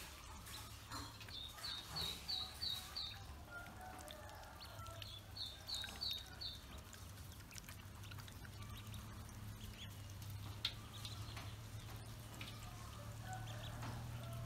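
Ducklings peeping in quick runs of short high calls, a few a second, with small splashes and lapping as they paddle in a metal basin of water. A low steady hum runs underneath.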